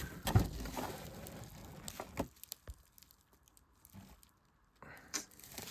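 Handling noises of a cardboard parcel and shrink-wrapped puzzle box: a few knocks and rustles in the first couple of seconds, then a nearly silent pause before faint rustling resumes near the end.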